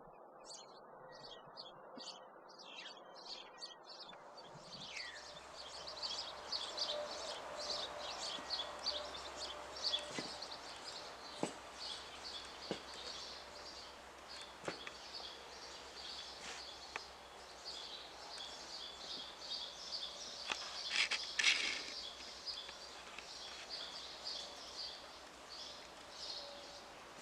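Small birds chirping in quick, repeated calls over faint outdoor background noise, with a louder cluster of calls about three-quarters of the way through.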